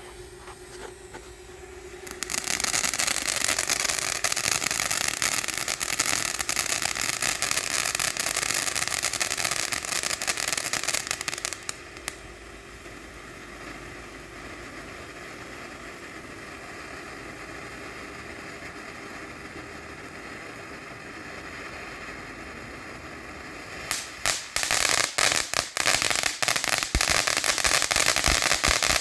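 Ground firework going off with a dense, loud crackling spray for about ten seconds, then dying down to a quieter hiss, before a second burst of rapid crackling pops near the end. A steady hum is heard before the first burst.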